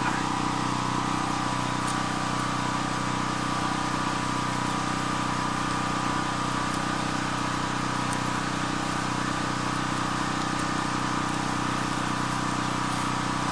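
A motor running steadily at one constant pitch, a low hum with a higher tone above it.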